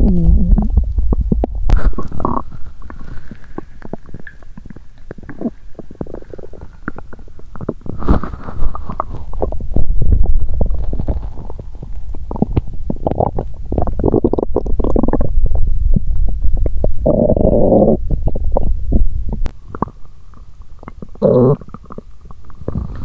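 A hungry human stomach growling and gurgling on an empty stomach after exercise: a string of irregular gurgles and rumbles, with a longer pitched growl about 17 seconds in and a short one near 21 seconds.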